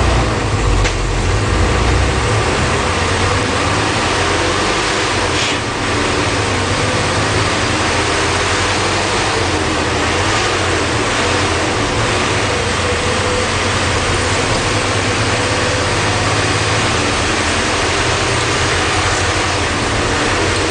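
MWM 6.10 TCA six-cylinder turbodiesel of a Volkswagen Volksbus 17-240 OT bus chassis, running steadily with a deep rumble, a little louder in the first couple of seconds.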